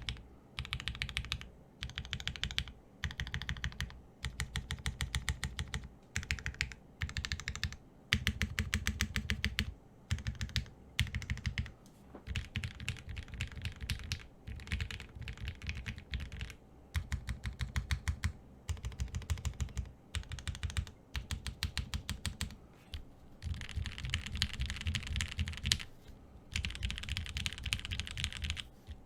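Typing on a Frog TKL mechanical keyboard with lubed and filmed Gateron X linear switches, an FR4 plate, GMK Dracula keycaps and case and plate foam. The keystrokes come in fast bursts of a second or two, with short pauses between them.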